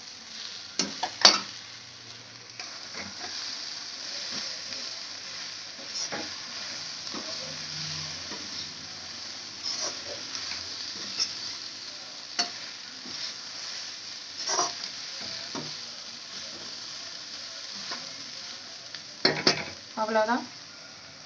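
Scrambled egg and vegetables with masala sizzling in a metal kadai while a perforated steel ladle stirs and scrapes through them, with sharp clinks of the ladle against the pan now and then, loudest about a second in and near the end.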